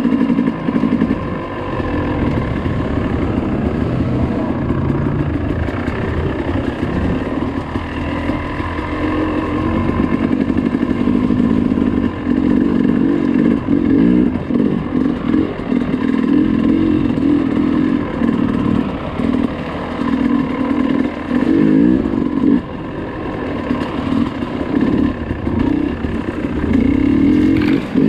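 Dirt bike engine running hard, its revs rising and falling continuously as the throttle is worked.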